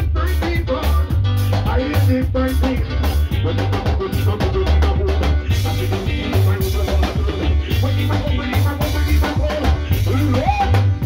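Live band playing an upbeat Jamaican-style groove, with a heavy bass line and a steady drum-kit beat.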